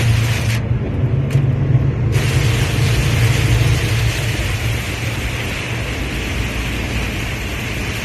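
Truck cab interior at highway speed in heavy rain: a steady low engine drone under an even hiss of rain and road spray. The hiss cuts out briefly about half a second in, then returns.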